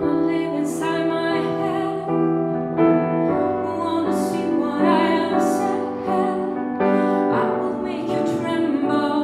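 A woman singing a song into a microphone, accompanied by a grand piano, holding long notes over piano chords.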